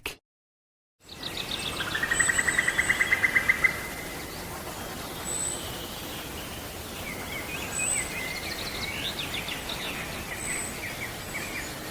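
Outdoor field recording of songbirds: a fast trill lasting about two seconds, thin high notes repeated every two to three seconds, and scattered chirps in the second half, over steady background noise.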